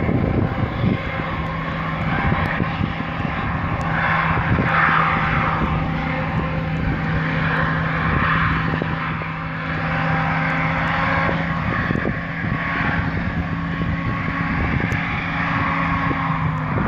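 Hovercraft engine and propeller droning steadily, with a constant low hum that holds one pitch.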